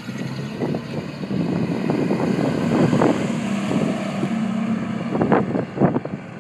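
1966 Chevrolet C10 pickup's engine running under throttle as the truck drives past, loudest as it passes close by about halfway through. Some wind noise on the microphone.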